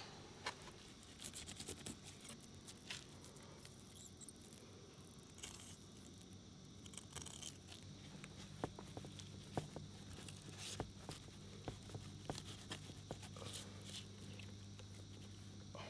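Fillet knife slicing and scraping through a crappie on a cutting board: faint, scattered scratches and small ticks. A low steady hum comes in about halfway through.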